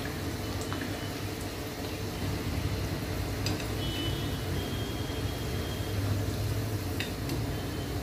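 Medu vadas deep-frying in hot oil, a steady sizzle and bubbling, with a few short clicks of a perforated steel slotted spoon against the steel pan as the vadas are turned and lifted out.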